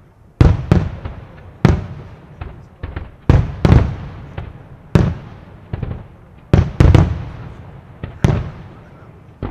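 Fireworks display: aerial shells bursting in quick, irregular succession, about twenty sharp booms in nine seconds, each trailing off in a rumbling echo.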